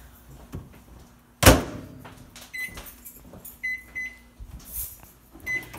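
Panasonic microwave oven door shut with one loud knock about a second and a half in, then four short keypad beeps as a cooking time is entered. A low steady hum follows the knock as the oven runs.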